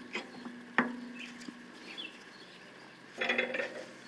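Bench vise being tightened on an aluminium mounting bracket: a sharp metal click about a second in, then a short rattle of metal clanks near the end. Faint bird chirps behind.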